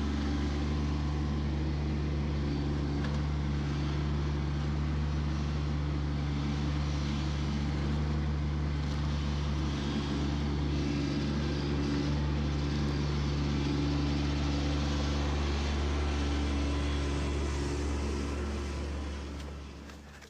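Compact tractor's diesel engine running at a steady speed, fading out near the end.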